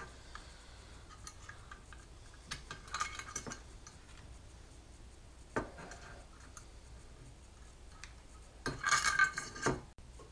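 Small metal hardware being handled: faint clinks and rattles of screws, spacers, bearings and nuts against a machine plate, with a louder clatter of metal parts and tools near the end.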